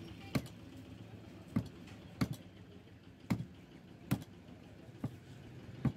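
Heavy butcher's cleaver chopping beef on a wooden stump chopping block: seven sharp chops, roughly one a second at an uneven pace.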